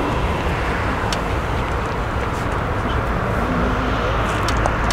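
Steady low roar and hiss of a distant four-engined Airbus A380 on final approach, heard mixed with outdoor wind and background noise.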